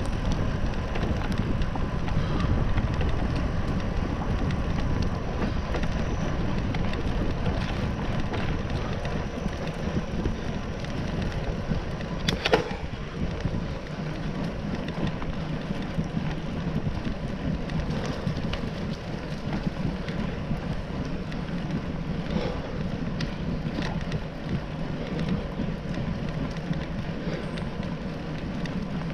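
Bicycle riding along a paved trail: steady wind rush on the microphone over the hum of tyres rolling on asphalt. A single sharp knock comes about twelve seconds in, with a couple of fainter ticks later.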